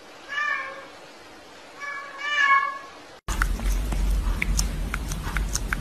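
A domestic cat meowing twice, the second call longer and louder. A little past three seconds in the sound cuts off abruptly to a steady noisy background with scattered clicks and ticks.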